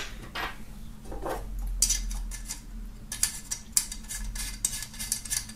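Small metal screw cap being handled and screwed onto the spout of a jerrycan-shaped hip flask: a run of quick, light metallic clicks and scrapes, denser in the second half.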